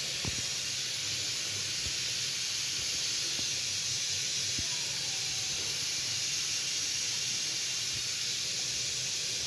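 Steady high hiss, with a few faint light taps.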